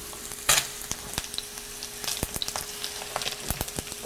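Pork belly fat sizzling in a hot frying pan: a steady crackle with scattered sharp pops and one louder burst about half a second in.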